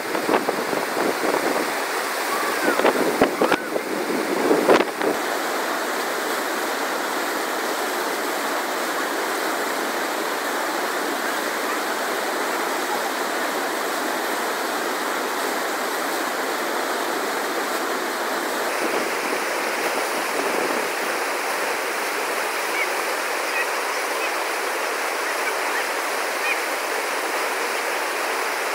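Steady rush of Platte River whitewater pouring over a standing wave at a river surf park. A few louder gusts of wind buffet the microphone in the first five seconds.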